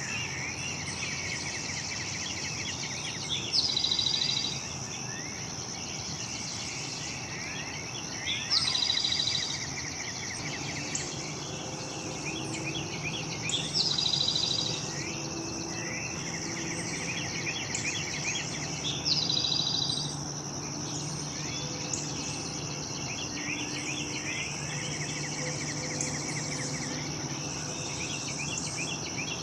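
A songbird repeating the same short song about every five seconds, a high note running into a rapid trill, over a steady high-pitched drone of insects.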